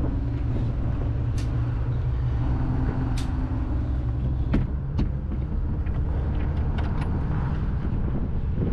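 A 1969 aluminum trawler's engine running steadily, a deep even drone, with a few sharp clicks and knocks, the loudest about four and a half seconds in.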